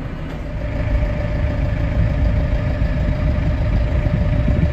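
Tractor engine running, heard from the driver's seat, getting louder about a second in, with a steady tone over the rumble.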